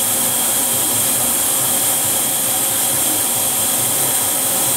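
Okuma MC-4VAE vertical machining center's spindle running free at a steady 4,000 RPM, barely warmed up: an even, loud hiss with faint steady tones under it.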